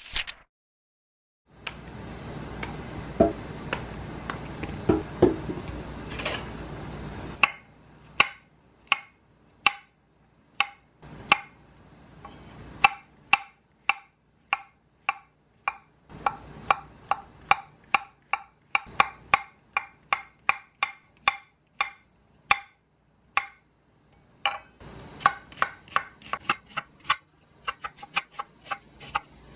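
Kitchen knife slicing white button mushrooms and then an onion on a wooden cutting board: sharp knocks of the blade reaching the board, about two a second, keeping up a steady rhythm. The first few seconds hold a steady rushing noise with a few knocks before the slicing begins.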